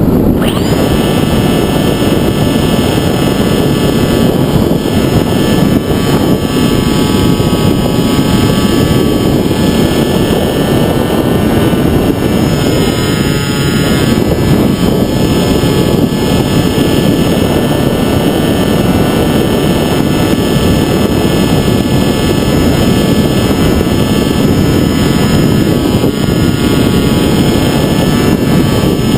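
Sky Surfer RC plane's electric pusher motor and propeller whining at steady throttle, heard from the onboard camera over a loud rush of wind on the airframe. The motor comes on at the start, dips in pitch about 13 seconds in, then holds steady.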